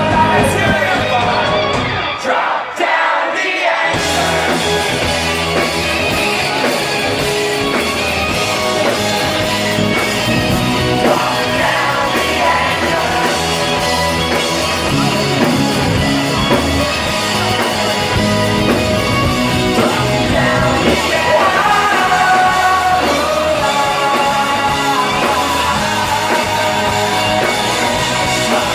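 Rock band playing live with a sung lead vocal. About two seconds in, the bass and drums drop out for a moment, then the full band crashes back in.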